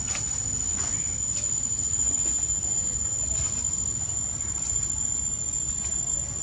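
Steady outdoor background noise: a low even rumble under a constant high-pitched whine, with a few faint clicks.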